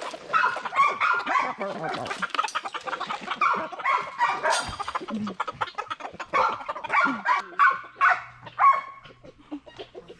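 Flock of chickens clucking and squawking, many short calls overlapping. A low steady hum joins in about three quarters of the way through.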